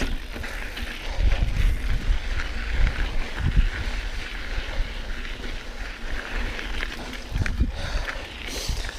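Mountain bike riding over a dirt trail: tyres crunching on the ground and the bike rattling over bumps, with wind buffeting the microphone.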